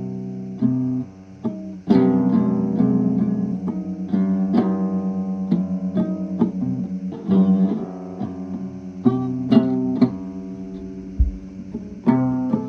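Background music of plucked guitar, a run of single notes and chords that each ring and fade.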